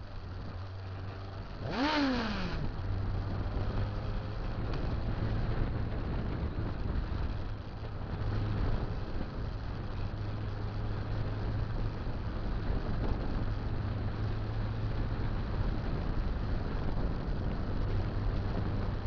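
Motorcycle engine running on the move, a steady low hum under wind and road noise. About two seconds in, the engine pitch rises sharply and drops back within about a second.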